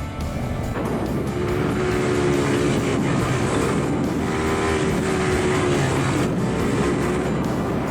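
Four-wheeler (ATV) engine running and revving, with background music.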